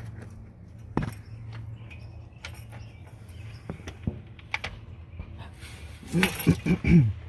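Scattered metallic clicks and clinks of a hand ratchet and tools working on the starter bolts, with a steady low hum underneath. A short vocal sound, like a grunt, comes near the end.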